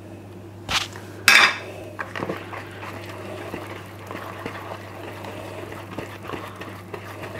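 A dough scraper working dough around a mixing bowl, scraping the sides clean. Two loud scrapes about a second in, then softer scraping with small taps against the bowl.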